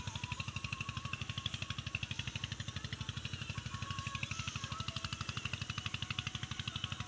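A small engine running steadily with a fast, even thudding beat, with thin wavering high tones above it.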